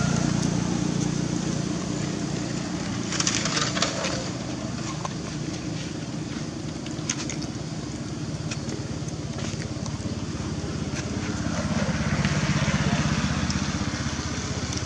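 A motor vehicle's engine hums steadily, growing a little louder about twelve seconds in. There are a few short clicks about three to four seconds in.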